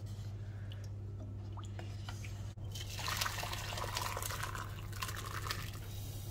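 Hot chicken broth with carrots poured from a pot into an enamelled pot, splashing and gurgling for about three seconds from halfway through. A steady low hum runs underneath.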